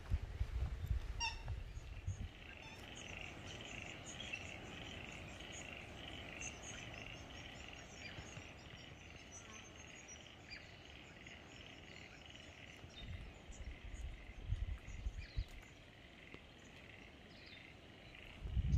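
A steady chorus of frogs calling, a continuous pulsing trill, with scattered bird chirps above it. Low rumble on the microphone in the first couple of seconds and briefly again later.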